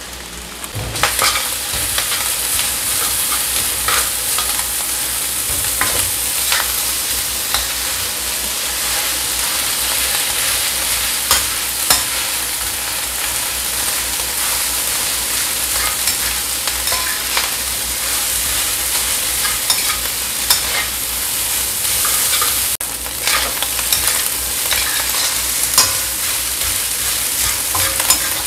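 Fried rice sizzling in a stainless steel wok while a stainless steel spatula stirs and scrapes it, with frequent short clinks of metal on metal. The sizzle picks up about a second in.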